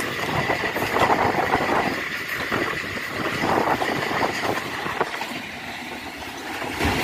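Passenger train running: a steady rumble and rattle of the carriage with a few faint clicks, easing slightly near the end.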